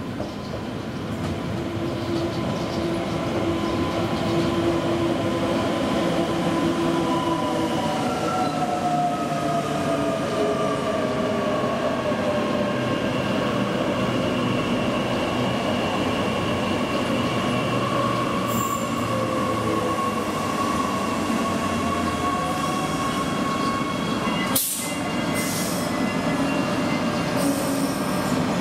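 Queensland Rail electric multiple unit running in to a platform and slowing: a steady rumble under whining and squealing tones that slide slowly in pitch, mostly falling. A short sharp burst of hiss comes near the end.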